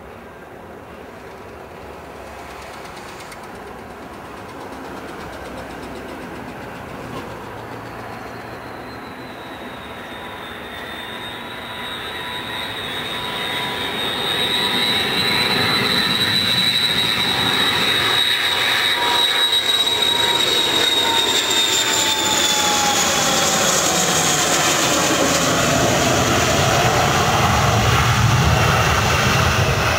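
Tupolev Tu-134 jet airliner landing, its two rear-mounted Soloviev D-30 turbofans whining and growing steadily louder as it approaches. From about two-thirds of the way in the high whine falls in pitch as the aircraft passes close by and touches down, with a deep rumble near the end.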